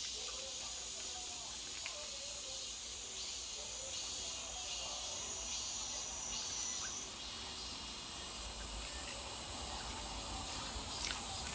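Outdoor ambience dominated by a steady, high-pitched insect drone, which changes pitch a little past halfway, with faint distant calls underneath.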